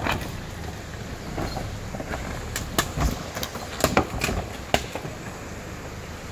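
Nissan Pathfinder R51 4x4 crawling over rocks: a low, steady engine rumble with a run of sharp knocks and clicks about halfway through as the tyres and underbody meet the stones.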